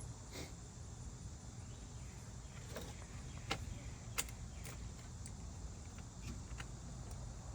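About six sharp light clicks and taps of metal hardware and hand tools being handled, over a steady low outdoor rumble and a faint high insect hum.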